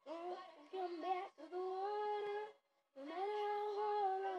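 A young girl singing alone without accompaniment: three phrases of long held notes with short breaks between them.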